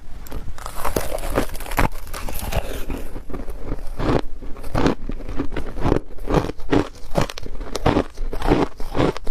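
Hard ice being bitten and chewed close to the microphone: a rapid run of loud, sharp crunches, several a second.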